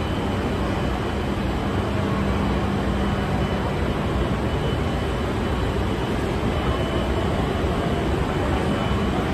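Escalator running: a steady mechanical rumble, with a low hum in it that fades out about halfway through.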